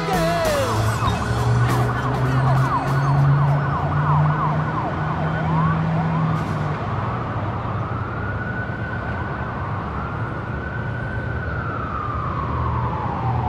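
Emergency-vehicle siren: quick yelping sweeps for the first half, then one long wail that rises, holds high and falls away near the end.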